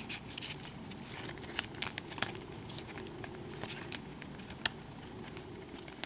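1991 Stadium Club baseball cards being slid and flipped through by hand, giving soft irregular clicks and rustles of card stock, with a sharper click about four and a half seconds in.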